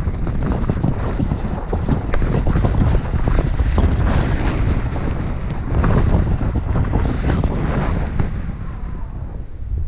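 Wind rushing over the microphone of a moving action camera, with the hiss of sliding on packed snow, during a run down a groomed ski slope. The noise eases a little near the end.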